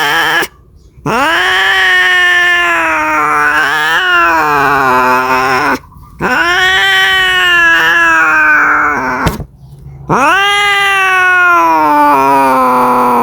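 A cat caterwauling: long, drawn-out yowls of several seconds each, wavering up and down in pitch, with short breaks between them. This is the mating call of a cat in heat.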